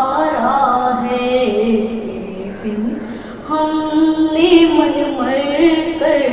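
A woman singing a noha, an Urdu Shia mourning lament, solo in long held, ornamented notes. Her voice drops away after about two seconds and comes back louder about three and a half seconds in.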